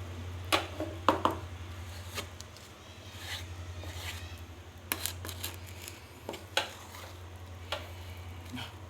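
Dishes and utensils clinking and knocking in scattered, irregular strikes, over a steady low hum.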